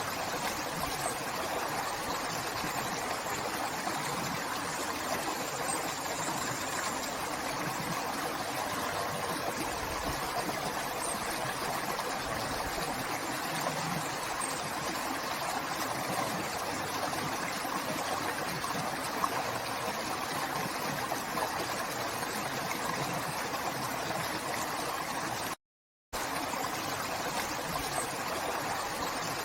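Steady rushing of a flowing river, an even wash of water noise. It cuts out completely for about half a second near the end.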